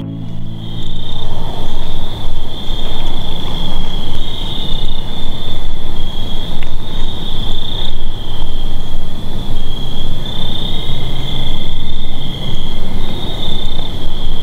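A chorus of crickets trilling steadily and high, under a loud, uneven rushing noise low down that swells and drops every second or so.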